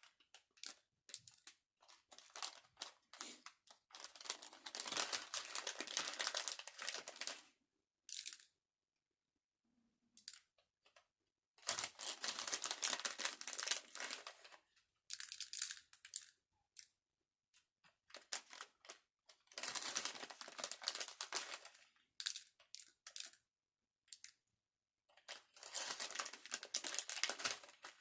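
Plastic packaging crinkling and rustling as craft sprinkles are shaken out, in bursts of a few seconds each with short silent gaps between.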